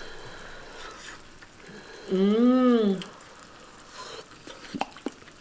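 A person hums one closed-mouth "mmm" of enjoyment while tasting a spoonful of food. The hum starts about two seconds in, lasts about a second, and rises then falls in pitch. Faint clicks follow near the end.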